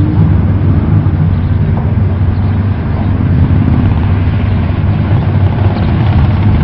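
Buick Regal T-Type's turbocharged V6 running at low speed as the car creeps forward, a steady low rumble with no revving.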